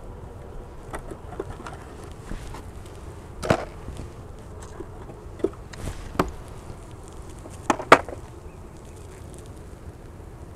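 Honeybees humming around an open wooden nuc box, with a few sharp wooden knocks and scrapes as a frame is worked loose and lifted out of the box. The loudest knocks come about three and a half, six and eight seconds in.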